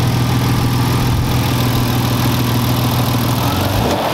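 BMW S50 straight-six engine idling steadily and smoothly, with no rod knock after new rod bearings. Near the end the steady idle note breaks up and changes.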